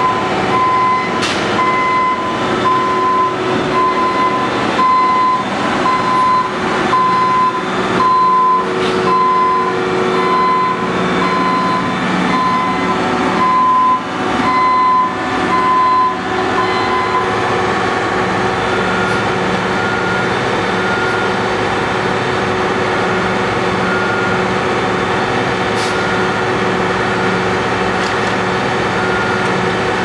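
Semi dump truck backing up with its back-up alarm beeping steadily, about once a second, over heavy diesel engine noise; the beeping stops a little past halfway, when the truck reaches the asphalt paver. After that a fainter, higher-pitched back-up beep sounds at a slower, uneven pace, and a few sharp knocks are heard along the way.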